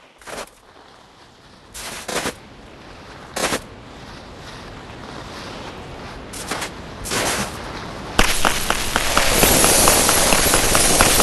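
Snowboard scraping over snow: several short scrapes, then a little after eight seconds a loud continuous rushing slide, crackling as the board runs over crusty snow.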